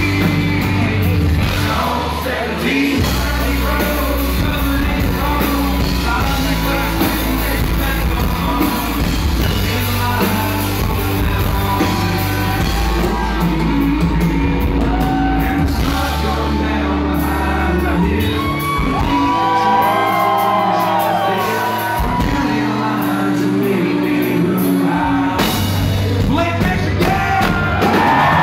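Loud live country-rock song with a lead singer and a full rock backing, sounding through a large hall, with shouts and whoops from the crowd.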